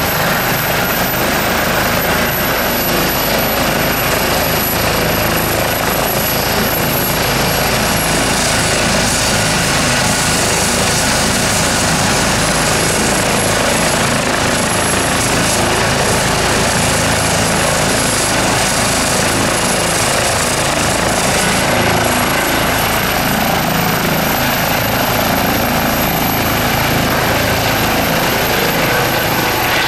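Airbus H135 helicopter's twin turboshaft engines and rotor running loud and steady on the ground, with a high turbine whine. The whine dips slightly, then rises again about two-thirds of the way through as power comes up for take-off.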